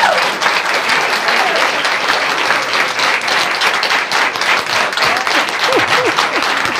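Small audience applauding steadily, with a few brief voices calling out near the end.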